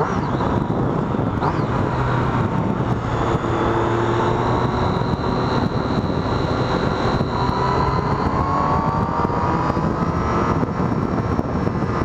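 Triumph Street Triple R's 675 cc three-cylinder engine running through its stock exhaust while the bike is ridden. The engine note climbs gradually about two-thirds of the way in.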